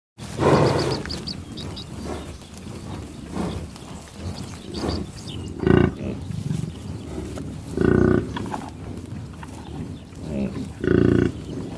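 American bison grunting and growling. There is a loud call right at the start, then three short, deep grunts about two to three seconds apart, with quieter eating and sniffling noises between them.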